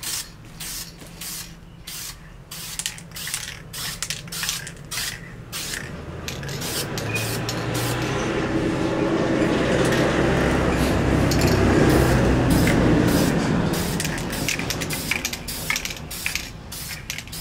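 Aerosol spray-paint can hissing as a heavier coat of paint goes onto a Brembo brake caliper, swelling to its loudest midway and fading again. Sharp clicks come and go near the start and the end.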